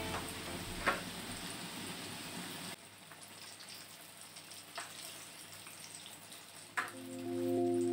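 Liquid cooking in a wok with a soft hiss, which drops away abruptly about three seconds in. A few light clicks of a whisk against the wok follow.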